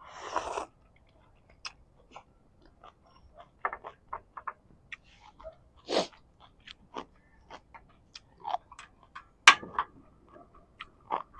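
Close-up eating sounds of a mouthful of hotpot noodles: a slurp at the start, then chewing with many short wet clicks and smacks, a few of them louder.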